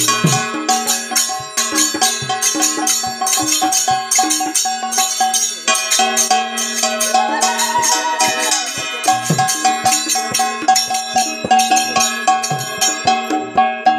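Music: a fast, dense run of percussion strikes over held notes at fixed pitches, with a melodic line that rises and falls near the middle.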